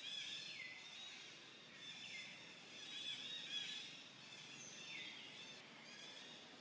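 Faint forest ambience: a high-pitched chorus of insects or birds, with a call that slides downward three times.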